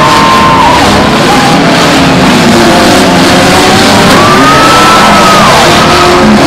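Many demolition derby cars' engines running and revving together, loud, with one engine's pitch rising about four seconds in, over crowd noise and music.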